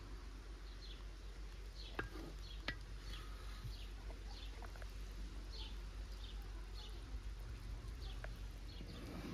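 A bird giving short high chirps, repeated about once a second, over a low steady rumble. Two sharp clicks stand out about two seconds and nearly three seconds in.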